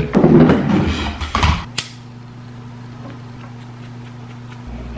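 Rustling and handling of a roll of nylon starter rope being unwound, then a sharp click and a steady low hum.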